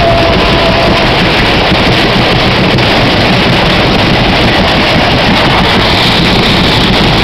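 Loud, distorted roar from a spinning Waltzer fairground ride, the ride's noise and wind buffeting the phone microphone as the car whirls. A single held note ends about a second in.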